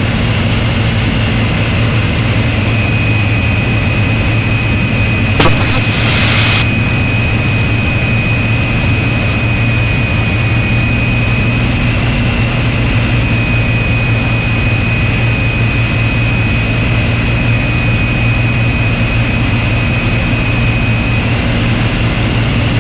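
Hawker Hurricane's Rolls-Royce Merlin V12 engine droning steadily in cruise, heard from inside the open cockpit with rushing air and a thin steady whine above it. A short click and brief burst of hiss come about five and a half seconds in.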